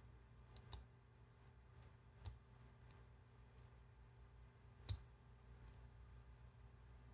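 Faint, sparse small clicks from a lock being worked on by hand with tools, with the most distinct at about one, two and five seconds in, over near silence.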